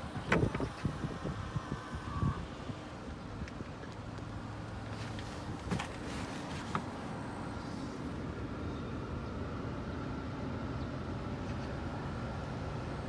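Steady low hum of a Hyundai YF Sonata idling, with a cluster of knocks and clicks in the first couple of seconds and a few more clicks around six seconds in as the driver's door is handled.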